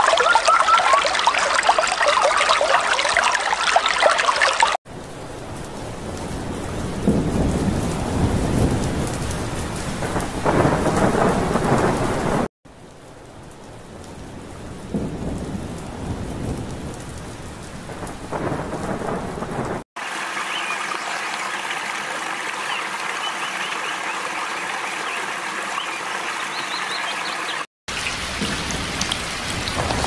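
A run of nature recordings joined by abrupt cuts. First comes flowing stream water for about five seconds. Then heavy rain with rolling thunder that swells and fades over two clips, and near the end a steadier rain hiss.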